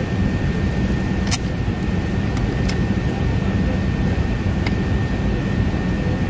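Cabin noise of an Airbus A380-800 on its takeoff roll: the steady, loud rumble of its Rolls-Royce Trent 900 engines and the runway, with a thin steady whine above it. A few light clicks and rattles come and go.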